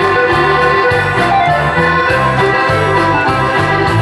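Lively Dutch folk dance music: a tune on an organ-like keyboard over a repeating bass line with a steady beat.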